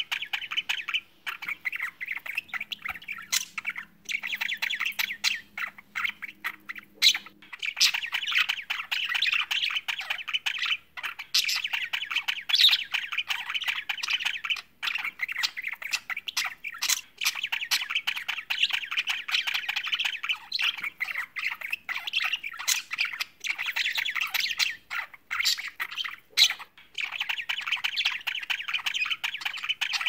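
Budgerigars warbling and chattering: a rapid, near-continuous stream of chirps, squawks and short clicks, with brief pauses now and then.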